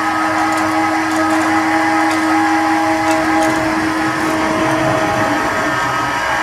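Electric hoist motor running steadily under load, lifting a heavy four-jaw lathe chuck of over half a metre across: a loud, even whine over a hum.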